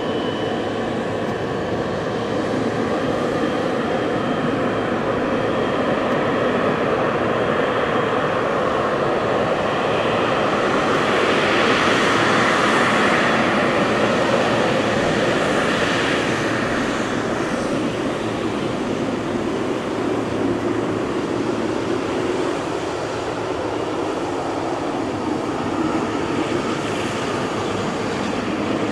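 Boeing 777-300ER's GE90 jet engines running, a steady jet rush and whine that grows louder toward the middle and then eases off.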